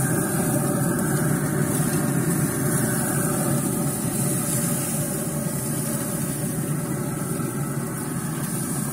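Pit Boss pellet grill's fan running with a steady whir while the grill is lit.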